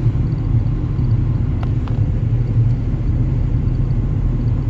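Ford Ranger pickup heard from inside the cab while driving slowly, a steady low rumble of engine and road noise, with two faint clicks a little before the middle.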